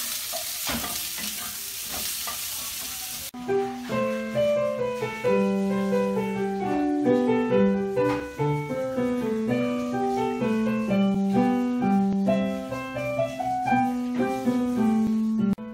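Food sizzling as it is stir-fried in a wok over a gas flame, cutting off suddenly about three seconds in. Then background music: a light keyboard melody of quick, separate notes.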